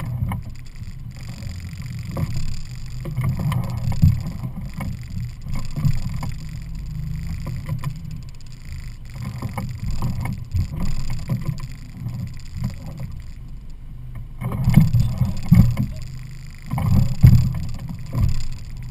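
Evinrude 50 hp E-TEC two-stroke outboard motor running at low speed as the boat is manoeuvred slowly onto its trailer. It is louder and more uneven for a few seconds near the end.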